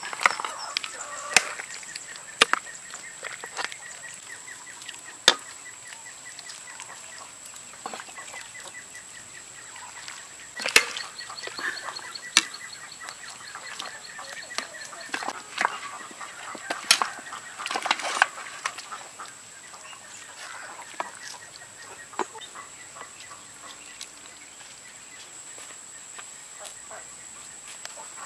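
A metal ladle clinks and scrapes against a metal wok and ceramic soup bowls while soup is served, in sharp irregular knocks. Farmyard chickens cluck in the background over a steady high whine.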